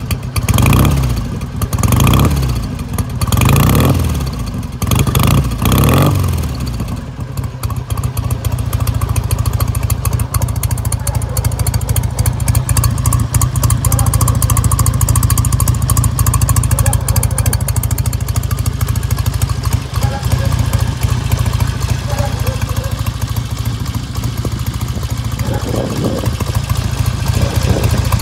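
1955 Ariel Cyclone's 650cc twin-cylinder engine heard at its exhaust silencers: revved in several short blips, about one every second and a half, then settling about six seconds in to a steady idle.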